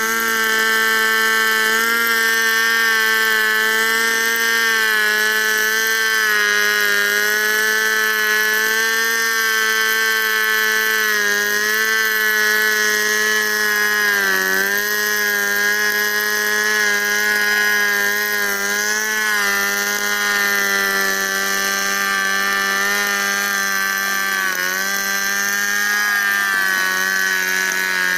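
Stihl 070 two-stroke chainsaw running at full throttle through a long lengthwise rip cut, freehand milling a log into lumber. The engine note holds steady and loud, sagging briefly a couple of times under load.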